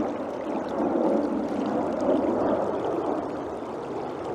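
River water rushing steadily, swelling slightly for a moment.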